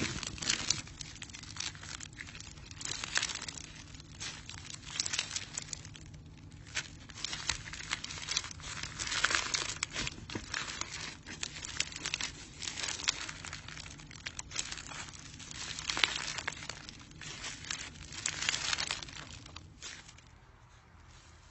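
Crunchy slime being squeezed and worked by hand, making dense crackling and crinkling pops that die down near the end.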